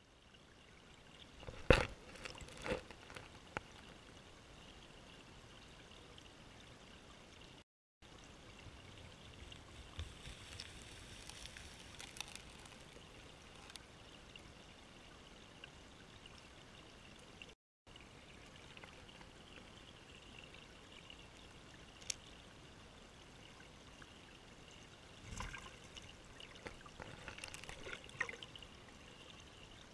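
Creek water flowing past an underwater camera: a steady, muffled water rush with a faint high steady tone. Occasional sharp knocks break it, the loudest about two seconds in, and the sound cuts out briefly twice.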